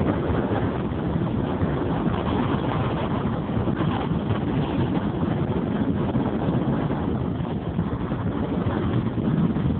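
Steady rushing and buffeting noise of wind on the microphone while the camera moves, with no clear engine tone.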